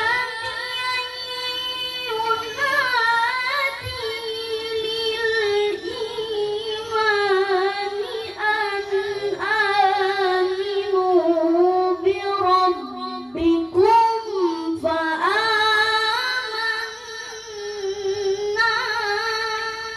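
A child qari chanting Quran recitation in a high-pitched voice, holding long, ornamented notes that waver and bend, with a short breath break about two-thirds of the way through.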